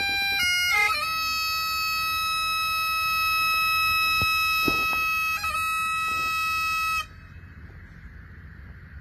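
Highland bagpipes playing a slow lament in long held notes over the drones, with a few note changes in the first second. The piping cuts off abruptly about seven seconds in, leaving only faint background noise.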